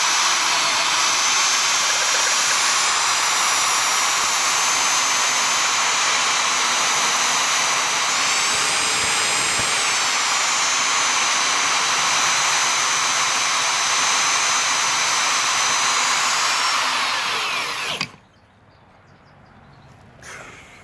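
Handheld electric power tool running at high speed with a whining motor, its pitch dipping and recovering briefly under load partway through. It then winds down and stops about eighteen seconds in.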